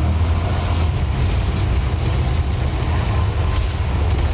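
Scania N94UD double-decker bus under way, heard from the upper deck: its five-cylinder diesel engine and drivetrain give a steady low rumble.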